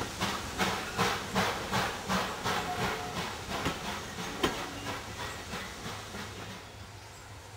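Exhaust beats of a GWR prairie tank steam locomotive pulling away with its train, about two and a half beats a second, fading into the distance. A single sharp click comes about four and a half seconds in.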